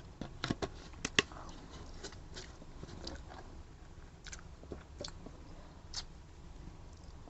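Close-up mouth sounds of a person chewing a mouthful of chicken Bicol Express: wet clicks and smacks, a cluster of louder ones in the first second and a half, then sparser ones.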